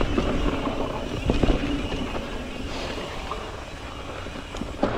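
Mountain bike riding down a dirt trail, heard from a helmet-mounted camera: wind rumbling on the microphone over the noise of the tyres rolling on dirt, with a short burst of knocks from the bike over bumps about a second and a half in.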